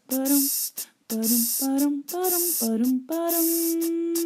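A person's voice making sound effects: about six short sung notes, each with a hissing "sh"-like noise, then one note held steady for nearly two seconds near the end.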